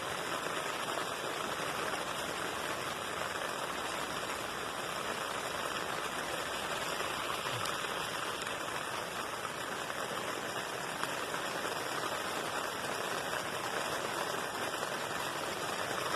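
Steady rain on a nylon tent, heard from inside: an even patter with no breaks.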